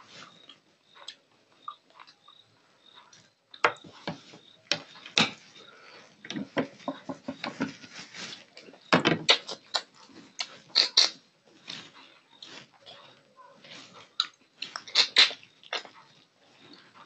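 Close-miked eating: a man biting, sucking and chewing on a piece of rohu fish head held in his fingers, making many irregular wet clicking and smacking mouth sounds. It is sparse at first and becomes dense and loud from about three and a half seconds in.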